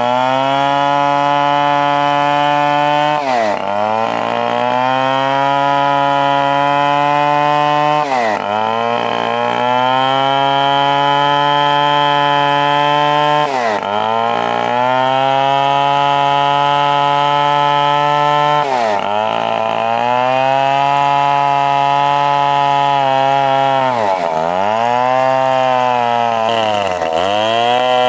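Stihl 070 two-stroke chainsaw running at high revs while cutting wood. About every five seconds the engine speed dips briefly and then climbs back, twice in quick succession near the end.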